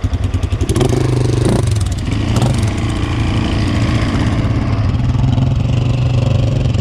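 Aeon Cobra quad's engine running under throttle, pulling steadily, with a few sharp knocks in its first few seconds.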